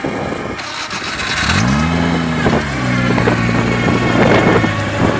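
Off-road buggy engine revving up quickly and then holding a steady, lower speed, with a brief rush of hiss just before the rev.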